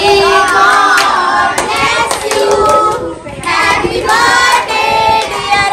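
A group of children and adults singing a birthday song together while clapping their hands along with it.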